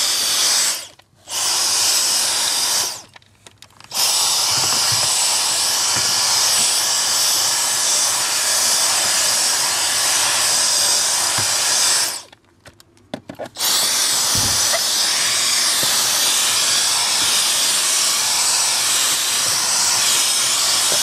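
Dyson DC45 cordless stick vacuum running with a loud, steady high-pitched motor whine and airflow hiss. It stops briefly three times, about a second in, around three seconds in and about twelve seconds in, then starts again.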